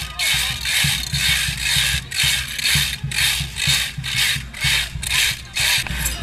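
Rattles carried or worn by parade dancers, shaken in a loud, even rhythm of about two bursts a second.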